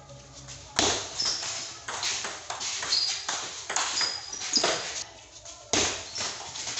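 Table-tennis rally: the ball knocks back and forth off the paddles and the table in quick, uneven succession. The sharp pings echo in the room.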